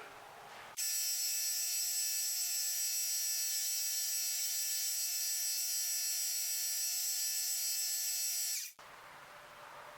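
Belt grinder running with a 220 grit belt, smoothing the edges of a Kydex sheath: a steady, high whine with many even tones. It starts abruptly about a second in and cuts off abruptly near the end.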